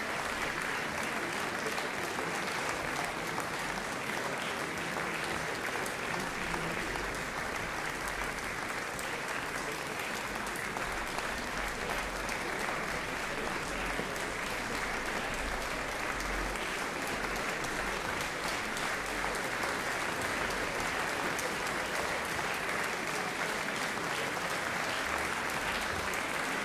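Concert audience applauding steadily: dense, even clapping with no break.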